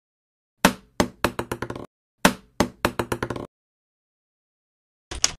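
Logo-intro sound effect: two runs of hollow, woody knocks, each with the strikes coming faster and fainter until they stop, like a dropped object bouncing to rest. The second run starts a little after two seconds in. A new rapid clatter begins just before the end.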